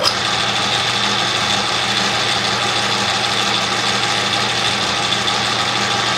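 Atlas metal lathe running at a steady speed, its motor and spindle drive giving a steady low hum with a thin high whine over it.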